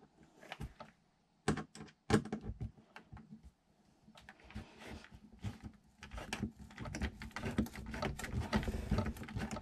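Manual screwdriver driving a screw into the wooden wall of a cabinet. There are a couple of sharp knocks about two seconds in, then from about six seconds in a dense run of small clicks as the screw is turned.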